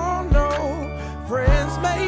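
Slow R&B love song: a sung vocal line over bass and a steady kick-drum beat.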